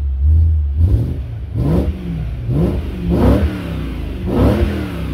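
2009 BMW E92 M3's S65 V8, with an Eisenmann cat-back exhaust, revved while parked. It gives several short throttle blips, each rising and falling in pitch, and drops back to idle between them.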